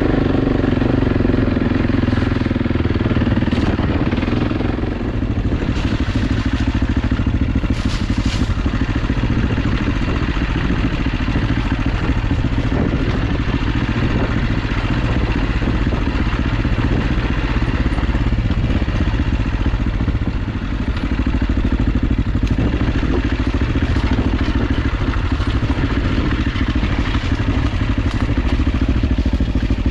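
AJP PR7 motorcycle's single-cylinder engine running steadily while the bike is ridden off-road. The sound eases off briefly twice, about five seconds in and again about twenty-one seconds in.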